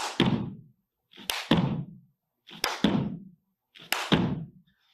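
Clapping push-ups: hands clapping and slapping down on the floor, four sharp hits about one and a third seconds apart, each dying away over about half a second.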